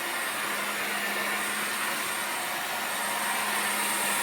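Dreame H14 cordless wet-dry vacuum mop running steadily, a constant motor hum with a thin high whine, while its clean water tank is empty.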